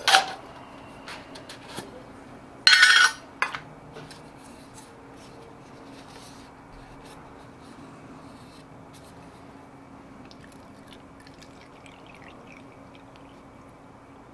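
A small metal alcohol stove set down on a board with a sharp clink, then a short loud rustling noise about three seconds in. Faint small handling clicks follow over a low steady hum.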